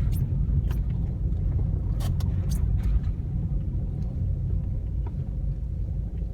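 Car driving, a steady low rumble of engine and road noise, with a handful of short sharp ticks scattered through it.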